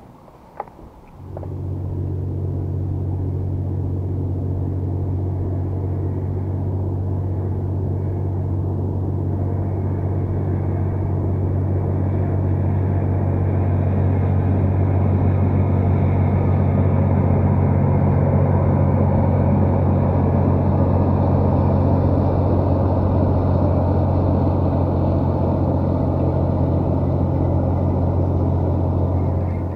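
Steady low engine drone of a fast passenger boat passing on the river. It starts suddenly about a second in, swells slightly toward the middle and cuts off abruptly at the end.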